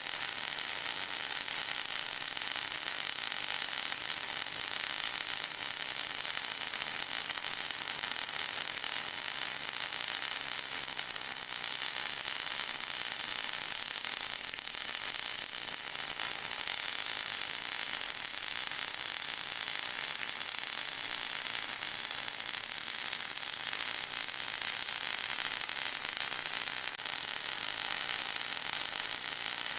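Steady high-pitched hiss with a fine crackle running through it and little bass, unchanging throughout: a white-noise track for masking tinnitus.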